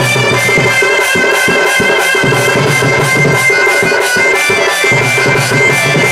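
Sambalpuri danda folk music: a wind instrument playing long held notes over drums and a fast, steady beat of about four strokes a second.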